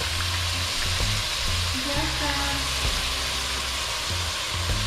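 Onion, thyme, peppers and scallion sizzling steadily in hot coconut oil in a pot. Background music plays underneath.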